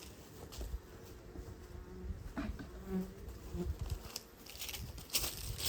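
Honey bees buzzing around an opened beehive, with a few light knocks scattered through.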